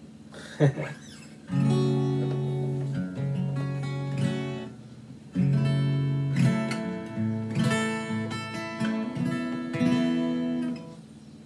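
Steel-string acoustic guitar, a Fender DG60CE with a Lekato LGC-1 capo clamped on, strummed in chords: about three seconds of strumming, a short break, then about five seconds more.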